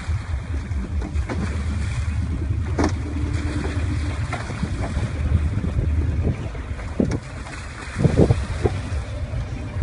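Wind noise on the microphone over water sloshing as people wade through a pond. A few sharper splashes come in a cluster near the end.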